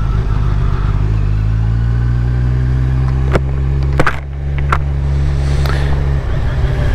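Motorcycle engine running at low revs in first gear, with a steady note. A few sharp clicks come around the middle, and the engine note changes about six seconds in.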